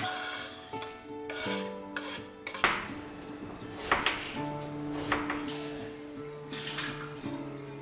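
Kitchen items being handled on the counter: a handful of sharp knocks and scrapes, such as a cutting board and knife being set down, about a second or so apart. Soft acoustic guitar music plays throughout.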